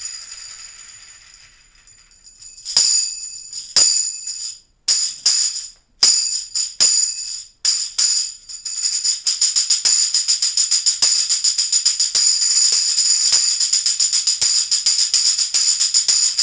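Latin Percussion Cyclops tambourine with solid, unperforated copper jingles being played. A jingle ring dies away at the start, then come a few separate strikes and shakes, and from about nine seconds in a steady, fast jingling rhythm of about five strokes a second.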